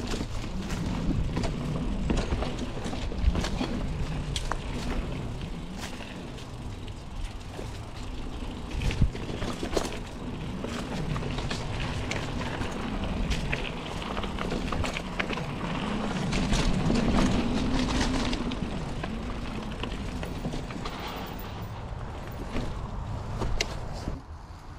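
Mountain bike being ridden along a dirt trail: a steady rumble of tyres on the ground with frequent rattling clicks from the bike over bumps. The noise drops away suddenly near the end.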